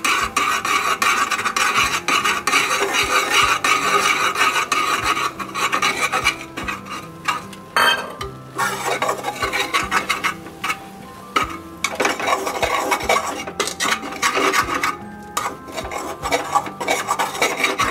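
Metal spatula scraping and stirring thickening rice-flour dough against the sides of an aluminium pressure-cooker pan, in quick repeated strokes, with a quieter stretch a little past the middle.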